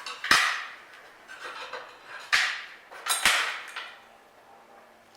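Three sharp, ringing metal-on-metal clanks, about a second in, just over two seconds in and a second after that, with lighter clinks and scrapes between them, as steel gate-latch stock is worked in a homemade bender.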